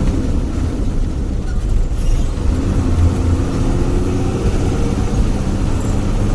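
Bus engine running steadily under way, a continuous low drone with a deep grumble.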